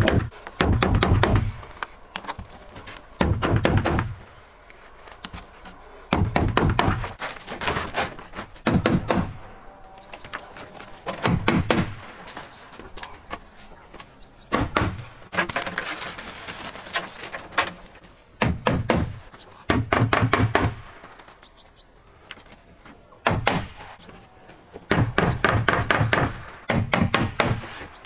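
Small hammer nailing asphalt roofing shingles onto a wooden dog-kennel roof: bursts of several quick taps every two to three seconds, with short pauses between while nails are set.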